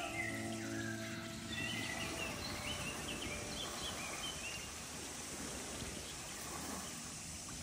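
Background music dies away about two seconds in, while quick high bird chirps carry on to around the middle. After that only a steady outdoor noise haze remains.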